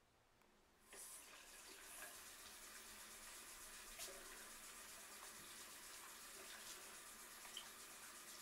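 Bathroom sink faucet turned on about a second in, then water running steadily into the basin, with small splashes as hands are washed under the stream. Faint.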